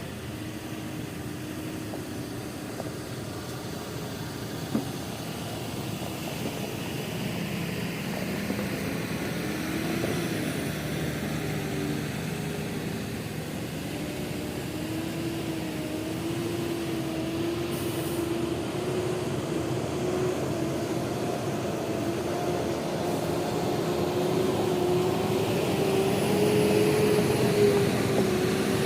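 Heavy construction-machinery diesel engine running, its pitch wavering and its level rising steadily, with one sharp knock about five seconds in.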